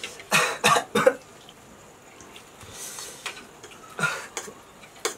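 A man coughing from the chilli burn of extra-spicy noodles: a quick run of three coughs in the first second, then another short burst of coughing about four seconds in.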